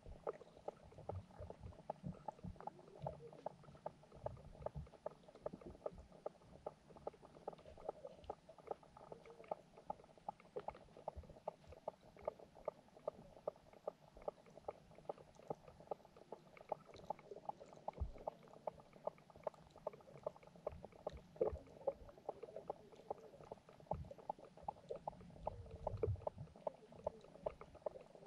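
Underwater sound of a fish pond, picked up by a submerged camera: a steady run of small clicks and ticks, about three or four a second, with now and then a low thump or rumble.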